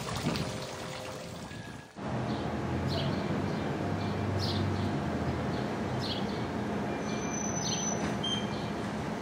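Outdoor street ambience: a steady low hum under a faint hiss, with a few short high ticks about a second apart; the sound dips briefly about two seconds in before the hum sets in.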